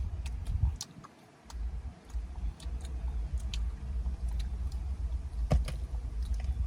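Small clicks and ticks of eating and handling food close to the microphone, over a steady low rumble that drops out briefly about a second in.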